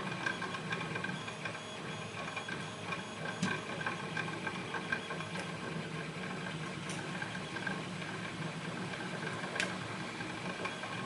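Steady mechanical hum with a few faint clicks scattered through it.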